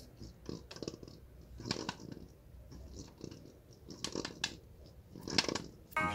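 A small ball clicking and rattling inside a clear plastic handheld dunk-shot basketball toy as it is tilted and shaken: irregular light clicks and taps, with a few sharper knocks.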